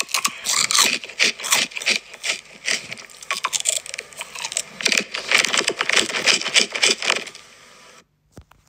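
Sesame rice crackers (goma senbei) being bitten and chewed, a rapid, irregular crunching that stops about eight seconds in.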